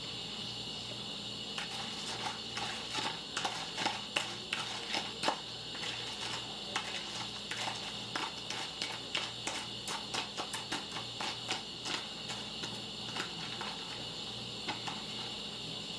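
A person chewing a mouthful of crunchy cereal (Trix and Froot Loops in milk), with many irregular crunches and clicks that thin out near the end, over a steady background hum.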